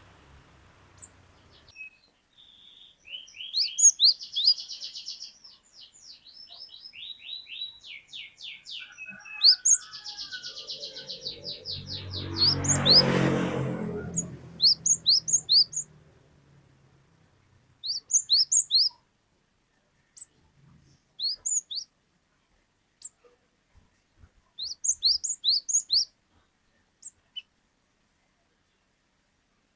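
Cinereous tit (gelatik batu) singing: fast chattering trills for several seconds, then repeated short, sharp 'wucit' whistles in groups of two to five with pauses between them. A rushing noise swells and fades in the middle.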